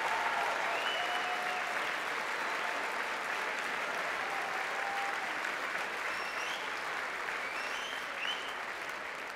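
A crowd applauding steadily, with scattered cheers over the clapping, slowly dying down toward the end.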